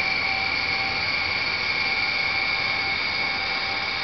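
A welding carriage's seam-tracking drive motor running with a steady high-pitched whine after tracking is switched on.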